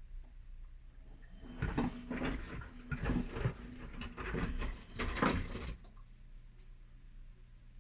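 Whirlpool front-loading washing machine in its main wash: the drum turns for about four seconds, its motor humming under the churn and slosh of water and wet laundry, then stops, leaving only a low hum.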